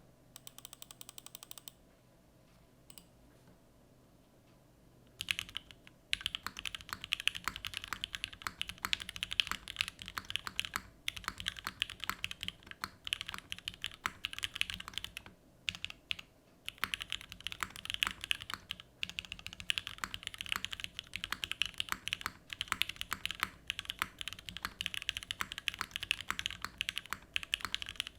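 Fast typing on an RME Studio Emery65 gasket-mounted 65% mechanical keyboard with lubed, filmed Gateron X linear switches in an aluminium plate. A quick, steady stream of keystrokes starts about five seconds in, broken by a few short pauses.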